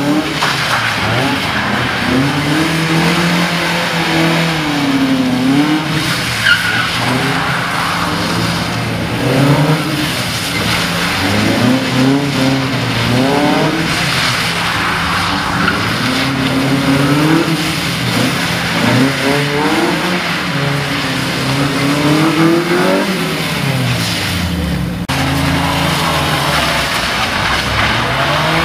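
A small roadster's engine is revved hard and eased off over and over, its pitch rising and falling every second or two, as the car is driven flat out and slid around cones on wet tarmac.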